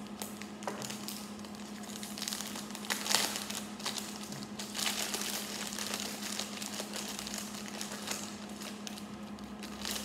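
Plastic bag of small plastic building bricks crinkling and rustling as it is handled and worked open, with a louder crackle about three seconds in.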